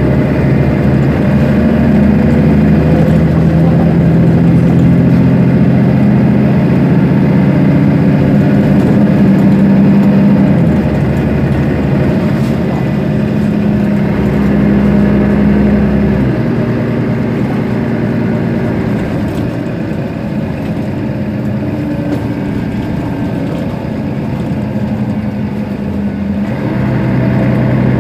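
Mercedes-Benz Citaro Facelift city bus's rear-mounted diesel engine idling at standstill. Its steady hum weakens about a third of the way in, drops to a lower, quieter drone a little past halfway, and rises again near the end.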